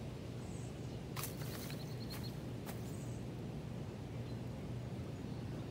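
Outdoor background by a pond: a steady low rumble, with a couple of sharp clicks and a short run of quick high ticks about a second and a half in.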